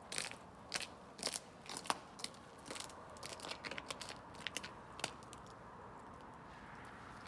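Footsteps crunching on grit and rock salt on a concrete sidewalk, about one step every half second, thinning out to a few light crunches in the last couple of seconds.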